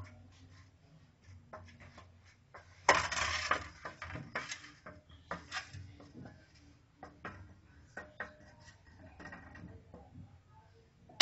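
Utensils knocking and scraping against a round aluminium baking pan as sauce is poured into it and spread with a wooden spoon. A louder stretch of scraping comes about three seconds in, then light scattered clicks.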